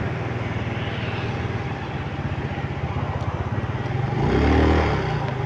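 Motorcycle engine running slowly with an even, rapid pulse, heard from the rider's own bike. About four seconds in, a passing vehicle swells briefly louder with a rising-then-falling pitch.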